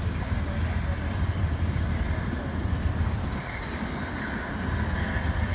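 Amtrak Superliner passenger cars rolling away over the rails: a steady low rumble of wheels on track as the train pulls out.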